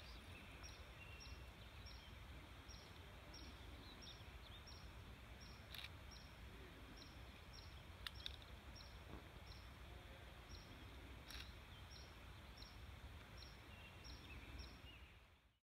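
Near silence: faint outdoor ambience with a low rumble. Over it, a faint high tick repeats about three times a second, with a few soft clicks. The sound cuts off suddenly near the end.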